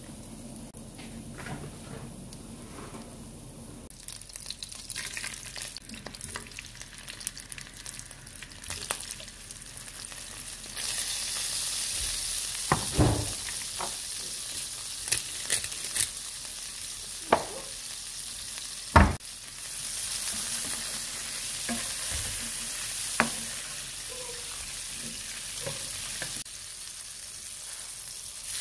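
Oil sizzling and crackling in a frying pan with shrimp, garlic and chilli flakes, starting quieter and getting much louder about a third of the way in. A few sharp knocks of a utensil on the pan stand out, the loudest about two-thirds of the way through.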